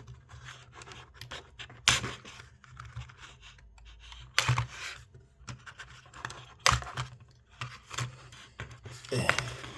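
Plastic toy packaging handled and scraped as an action figure is worked free of it, with scratchy rustling and a few sharp plastic clicks.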